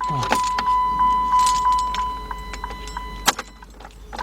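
The car's dashboard warning chime beeps at a steady pitch, about three times a second, while the ignition keys jangle and click; one sharp click comes about three seconds in. The engine does not crank at all, a no-start with the starter never engaging.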